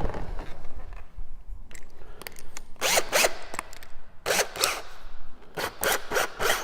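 Handling noises while setting up at a sink: irregular bursts of scraping and rustling, about three clusters.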